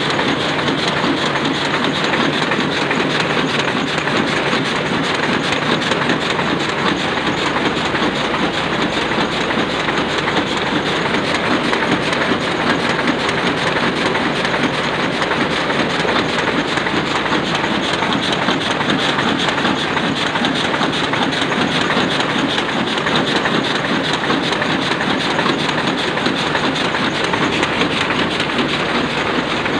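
Sakurai Oliver 66 sheet-fed offset printing press running steadily, a loud, even, rapid mechanical clatter that holds without a break.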